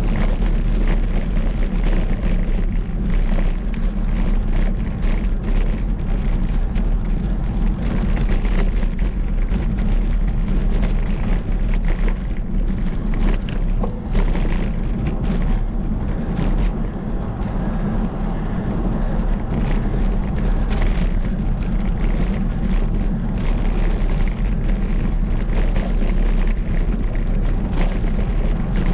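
Wind buffeting the microphone of a camera riding along on a bicycle: a steady low rumble with frequent crackles.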